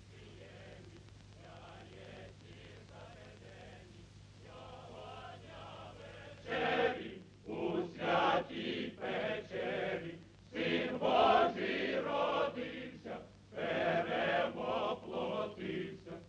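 A group of voices singing a chant-like song in short phrases, faint at first and much louder from about six and a half seconds in, over a steady low hum from the old film soundtrack.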